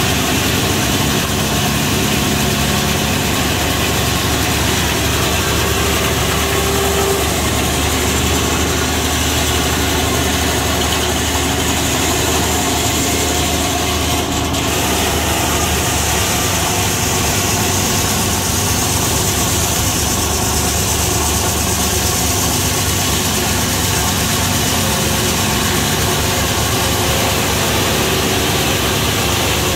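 Circular sawmill running, its large head-saw blade cutting through an ash log on the carriage: a loud, steady mechanical din of blade and power unit.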